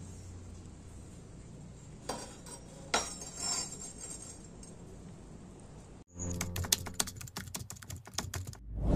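Faint room tone with a few light clicks as a steel blade is handled, then, after an abrupt cut, a rapid run of sharp typing-like clicks over a low hum, an outro sound effect that lasts about three seconds.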